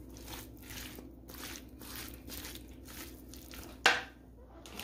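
Silicone spatula stirring a thick, creamy casserole mixture of hash browns, diced ham and sausage in an enamelware roasting pan: soft squishing strokes about twice a second, with one sharp knock about four seconds in.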